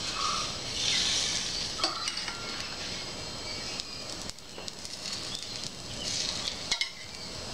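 Beaten egg sizzling as it is spooned onto bread on a hot flat griddle, the sizzle swelling about a second in and again around six seconds. A few light clicks of a steel spoon.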